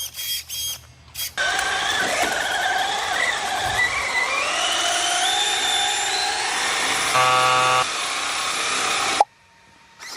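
Small electric motor of an RC car running with a high whine whose pitch slowly rises, cutting off abruptly near the end. A short buzzy horn-like tone sounds about seven seconds in.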